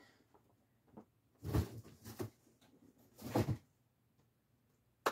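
Cardboard box being handled and moved: two short bursts of rustling and bumping about two seconds apart, then a single sharp click near the end.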